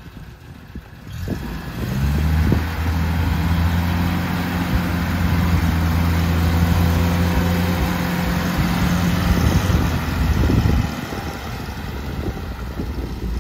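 UAZ 469 engine revving up under load about two seconds in and held at high revs while pulling through deep mud, then dropping back about eleven seconds in.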